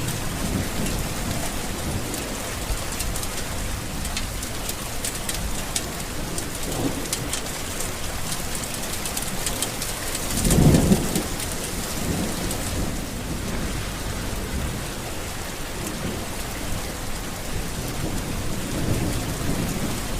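Steady heavy tropical rain pattering on surfaces, with low rumbles of thunder; the loudest rumble comes about halfway through.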